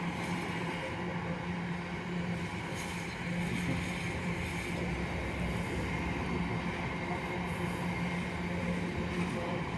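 A train running past on the line, with a steady hum and rumble that does not break off.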